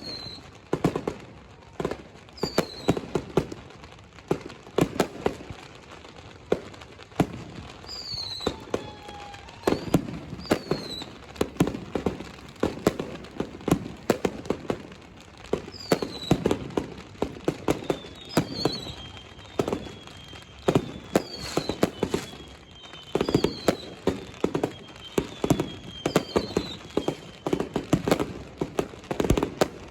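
A dense, continuous barrage of fireworks exploding in rapid, irregular bangs, joined by about a dozen whistling rockets whose whistles fall in pitch, most of them in the second half.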